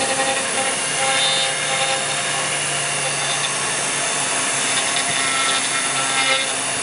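CNC router spindle running steadily as its bit mills a bubinga wood block into a sculpture: a constant machine hum and whine over the hiss of the bit cutting wood.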